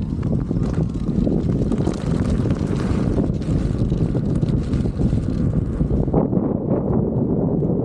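Wind buffeting the camera microphone while riding along on an electric unicycle, a steady low rumbling noise; the higher hiss drops away about six seconds in.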